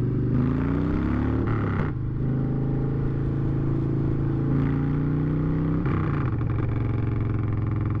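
Motorcycle engine accelerating: its pitch climbs, drops sharply about two seconds in as it shifts up, then holds and drops again at another upshift about six seconds in. Wind and road noise run under it.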